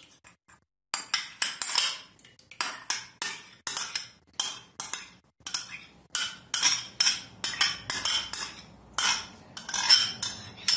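Metal teaspoon scraping and clinking against a small white bowl in quick repeated strokes, about two to three a second, starting about a second in, as a milk-and-yogurt mixture is scraped out of the bowl.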